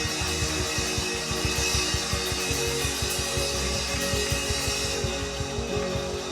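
Instrumental church band music playing under prayer, with sustained chords and a steady drum beat.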